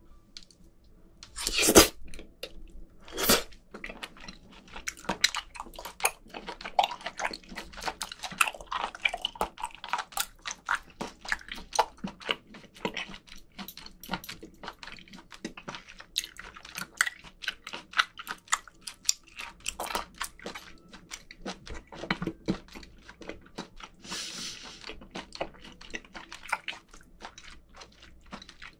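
Wet chewing of chopped raw live octopus (sannakji), a dense run of small sticky clicks and squelches. Two louder sounds stand out near the start, the loudest about two seconds in.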